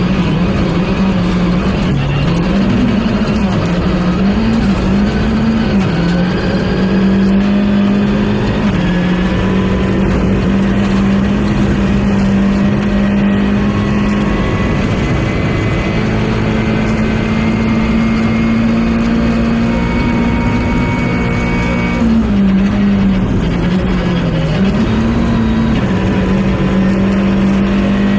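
Rally car engine running hard at high revs for the whole stretch, its note mostly held steady and dipping and climbing again a few times, with road and wind noise underneath.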